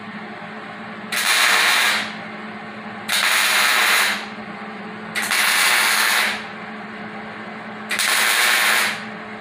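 MIG welder laying four short tack welds, each a crackling sizzle about a second long, with a couple of seconds between them. The sizzle sounds like bacon, and a steady hum from the welder runs underneath.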